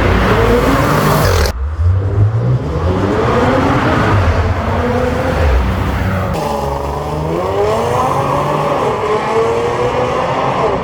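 Audi S4 B8.5's supercharged 3.0 V6 through an HG Motorsport BullX half-catback exhaust, accelerating hard in a tunnel: the revs climb in several pulls, broken by quick dual-clutch upshifts that each give a deep exhaust fart.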